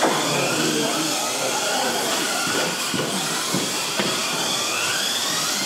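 Several stock-motored Kyosho Mini-Z 1:28 electric RC cars racing together: a high, steady hiss and whine of small motors, gears and tyres, with pitches rising and falling as the drivers throttle, and a few sharp clicks.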